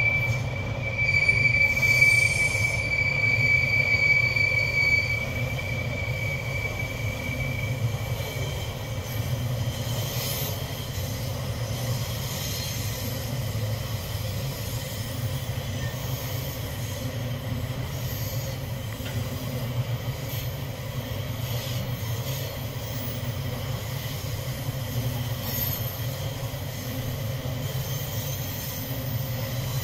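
Container wagons of a freight train rolling through a curve, their wheels squealing on the rail with a steady high tone that fades out over the first several seconds. After that there is a steady rumble of wheels on the track, with brief fainter squeals now and then.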